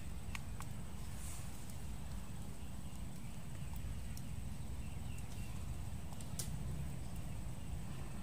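Light plastic clicks from a folding four-petal LED camping lamp being unfolded and handled, twice near the start and once more later, over a steady low outdoor rumble.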